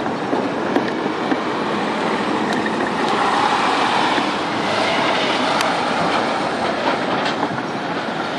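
Freight train rolling past: a steady rumble of wheels on the rails, with scattered sharp clicks.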